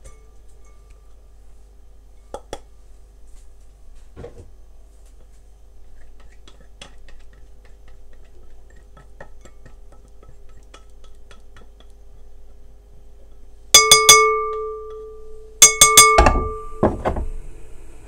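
Kitchen utensil clinking against a bowl: light, scattered clicks of handling, then near the end one loud clink that rings on with a clear tone, followed by a quick run of several more ringing clinks.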